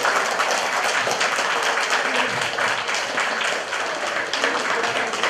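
A roomful of guests applauding, a steady dense clapping that carries on throughout.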